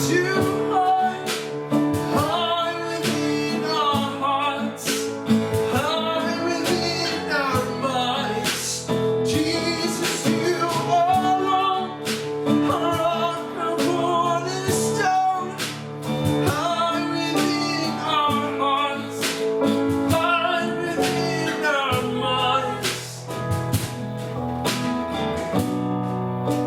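A worship song: voices singing over guitar and other instruments.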